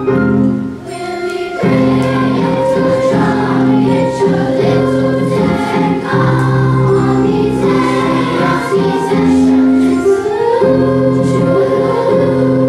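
Children's choir singing with instrumental accompaniment. The voices come in about a second and a half in, after a short instrumental passage.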